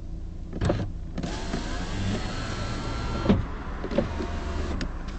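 A car power window motor runs for about two seconds with a faint rising whine as the glass travels, then stops with a sharp knock about three seconds in, as the glass reaches the bottom. The other windows in the car come to a quiet stop. Smaller clicks come before the motor starts and twice after it stops.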